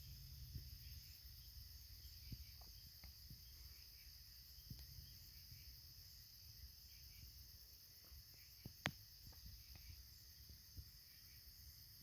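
Faint, steady chorus of crickets trilling, with a few small clicks and one sharper click about nine seconds in.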